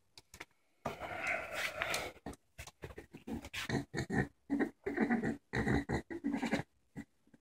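A dachshund's harsh, throaty breathing during a seizure, rapid rough breaths coming about three times a second from about a second in, stopping shortly before the end. The owner takes the seizure for most likely epileptic.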